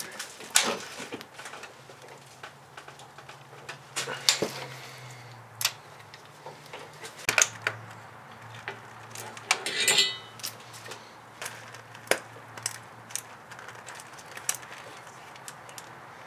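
Scattered metallic clicks and knocks of hand tools on an engine as a socket and torque angle gauge are worked on a cylinder head bolt, with a short burst of rapid clicking about ten seconds in.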